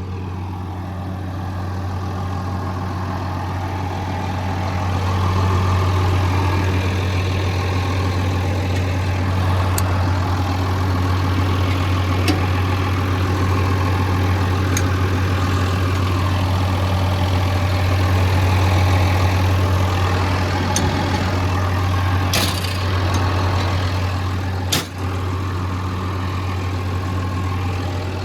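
Komatsu D65EX-18 bulldozer's diesel engine idling steadily with a deep low hum, with a few sharp clicks and knocks, the clearest about 22 and 25 seconds in.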